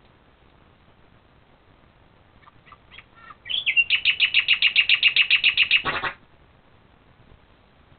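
A few faint chirps, then a loud, very regular run of high-pitched chirps about three and a half seconds in, about nine a second for some two and a half seconds, ending abruptly with a short sharp noise.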